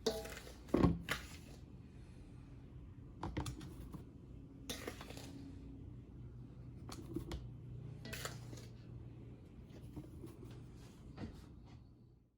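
Irregular clicks, knocks and brief scraping rustles of dry mix being put into an airtight storage container and the container being handled, over a faint steady low hum.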